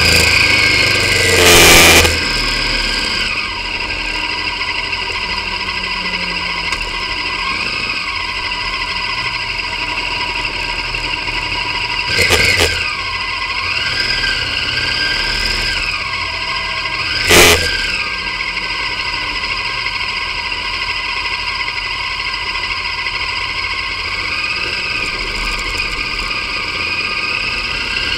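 V-twin motorcycle engine running as the bike rides in traffic, heard through a camera mounted on the bike, with three short loud knocks, one near the start and two in the middle.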